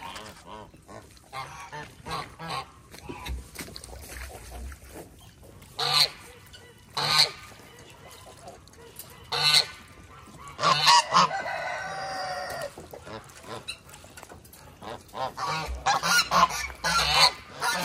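Domestic geese honking in short, loud, irregular calls, with one longer drawn-out call around twelve seconds in and a quick run of honks near the end.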